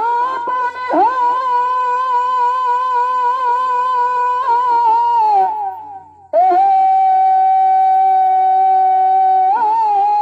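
Shehnai-type reed pipe of a Chhau dance band playing long, steady held notes with small ornaments. The melody breaks off briefly about six seconds in, then resumes on a lower held note.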